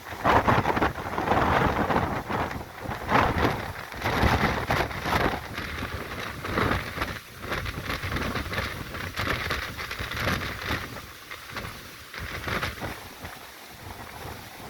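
Storm wind gusting hard against the microphone, with heavy rain; the gusts are strongest in the first few seconds and ease off somewhat later.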